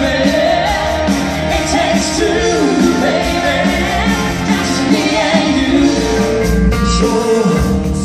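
A band playing a pop song with a lead vocal, sung over drums and keyboards.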